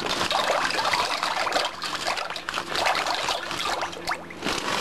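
Dry penne pasta dropped into a large pot of water: many small irregular splashes and light clicks as the pieces hit the water.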